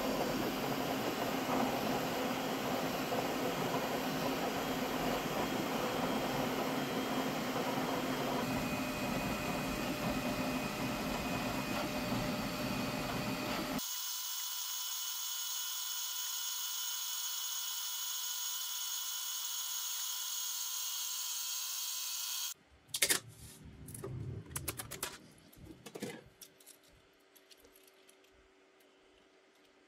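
Flashforge Adventurer 5M Pro core-XY 3D printer running mid-print: a steady whir of fans and motors, which drops about 14 seconds in to a quieter whine with higher steady tones. Near the end, a few seconds of irregular plastic clicking and rattling from the joints of a printed articulated skeleton hand being flexed, loudest at its start.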